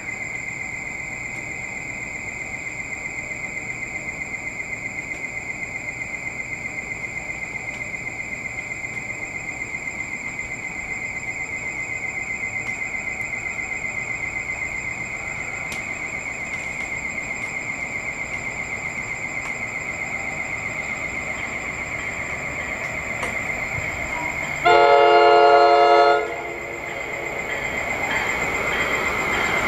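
Station platform warning alarm: a steady high electronic tone pulsing rapidly, starting suddenly and sounding throughout. Near the end an approaching commuter train's horn blasts loudly once for about a second and a half, then the train's rumble builds as it nears.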